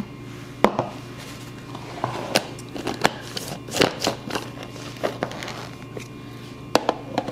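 Scattered plastic clicks and knocks from a NutriBullet blender cup and its blade base being handled, screwed together and turned over, about a dozen short taps in all. A faint steady low hum sits under them.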